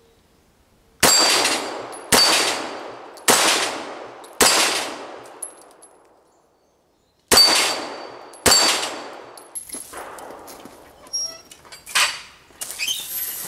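Six .45 ACP pistol shots from a Ruger American Pistol, about a second apart in a run of four, then a pause of about three seconds and two more, each with a ringing tail as steel knock-down plates are hit. Near the end come several lighter metallic clanks as the plates are reset upright.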